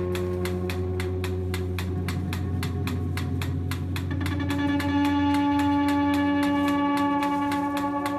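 Experimental electronic music: held drone tones under a steady clicking pulse of about five ticks a second. About halfway through, the low drone fades and higher sustained tones take over.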